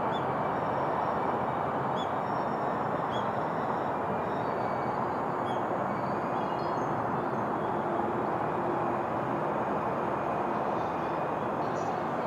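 Freight train of oil tank wagons rolling past, a steady rush of wheel-on-rail noise with a few faint high squeaks.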